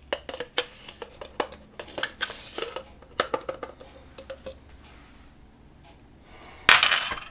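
Metal teaspoon clinking and scraping in a spice container while scooping dried dill, a run of small taps. About seven seconds in, one loud short clatter with a high ring as the spoon knocks against the stainless steel Thermomix mixing bowl.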